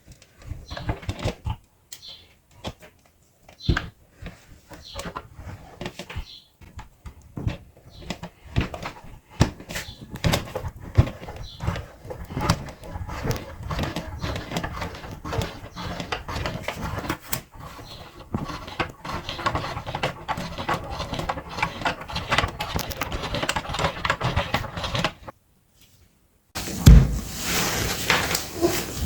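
Meat grinder crunching and crackling as something hard is forced through it: a dense, irregular run of cracks and clicks, breaking off briefly near the end before starting again louder.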